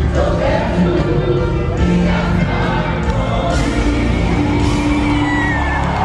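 Gospel worship music with many voices singing together and crowd noise underneath, loud and continuous.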